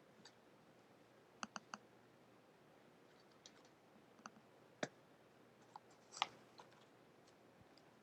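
Scattered computer mouse clicks over near silence: a quick run of three about a second and a half in, then single clicks, the loudest a little after six seconds.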